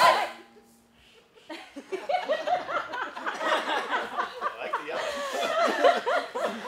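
Hand drumming ends on a final stroke that rings out briefly. After about a second of near quiet, a small group of people laughs and chatters.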